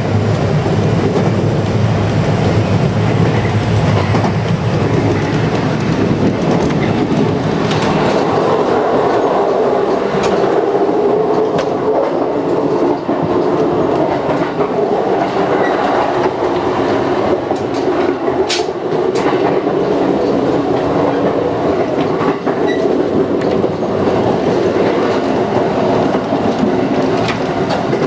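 JR West 521 series electric train running, heard inside the passenger car: a steady rumble of wheels and running gear on the track, with occasional sharp clicks from the wheels passing rail joints.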